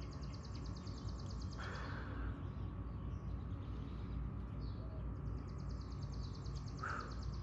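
A small bird singing a fast, high trill, which stops about a second and a half in and starts again near the end. Between them come two short breaths from the man holding the stretch, over a low steady hum.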